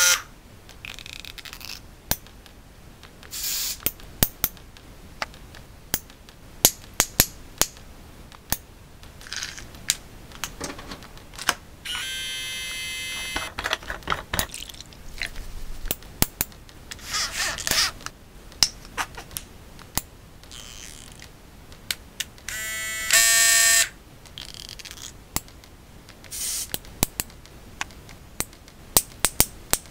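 A cut-up collage of small bathroom sounds: sharp plastic-and-metal clicks and taps, scattered irregularly, broken twice by a short burst of an electric shaver buzzing.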